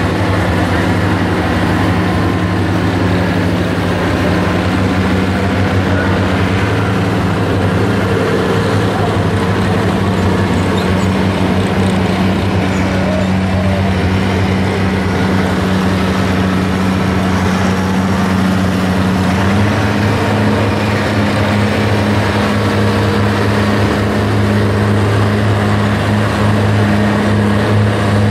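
Farm stock diesel tractor engine running steadily under heavy load while pulling the weight-transfer sled at a governed slow speed. The engine note steps up slightly about two-thirds of the way through.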